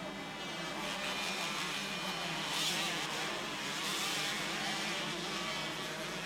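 Several motocross bikes racing on the track, their engines revving in a steady, overlapping drone that swells a little about two and a half seconds in.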